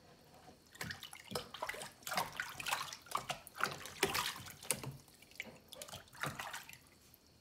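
Bath water in a plastic basin splashing and sloshing in irregular bursts as hands scoop and pour it over a wet puppy. The splashing starts about a second in and dies down near the end.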